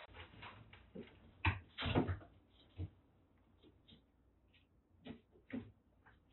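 Cats wrestling in a wire cage: irregular soft thumps, knocks and rustling of bodies and paws on the cage floor. The loudest are two knocks about one and a half and two seconds in.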